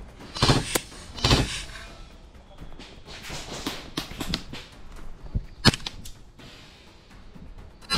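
Airsoft gunfire: two short rattling bursts in the first second and a half, then a few single sharp snaps, the loudest just under six seconds in.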